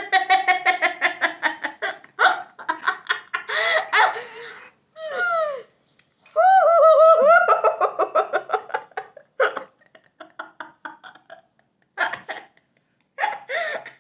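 Laughter in several long bursts, with short pauses between them.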